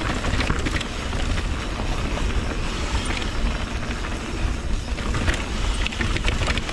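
Mountain bike riding fast down a trail, heard from an action camera's microphone: a steady wind rumble on the microphone, tyres rolling over the trail surface, and irregular clicks and rattles from the bike.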